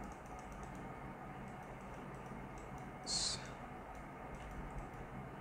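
Low steady hiss with faint clicks of a computer mouse and keyboard, and one short hissing sound about three seconds in.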